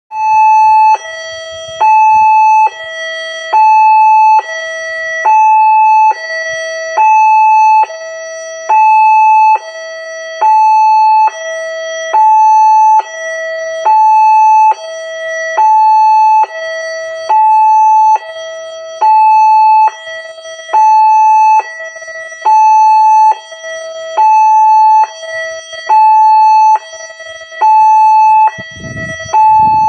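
Railway level-crossing warning alarm sounding continuously, two electronic notes alternating high and low with one part much louder, about one cycle every two seconds. A low rumble joins near the end.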